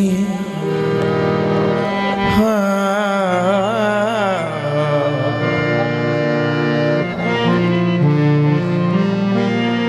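Harmonium playing long held notes and chords, with a man's voice singing a wordless, wavering ornamented phrase over it about two to four seconds in.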